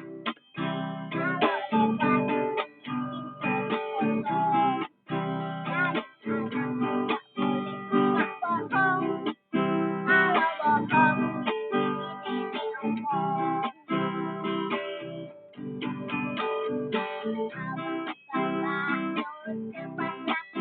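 Acoustic guitar strummed in a steady rhythm, with a child's high voice singing a melody over it; the strumming stops briefly a few times between phrases.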